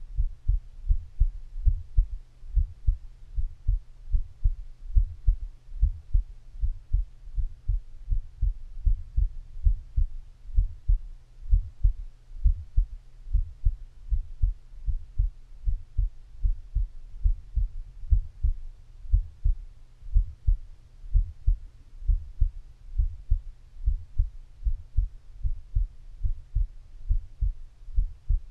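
A person's heartbeat picked up through the skin of the belly: steady, deep thumps in pairs, lub-dub, over a low steady hum.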